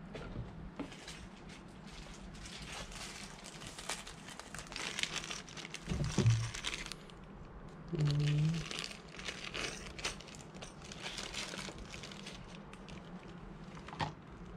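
Crinkling and rustling of a small clear plastic bag of fittings being handled, in irregular bursts, with two short low hums around the middle.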